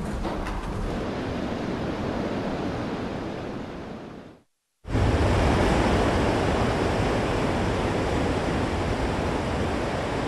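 Steady rushing wind and sea noise with a low rumble. It fades out about four seconds in, breaks off briefly, then comes back louder and keeps going.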